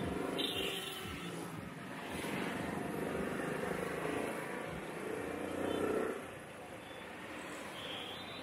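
Street traffic: motor vehicle engines running past. The loudest swells about five to six seconds in and then drops away.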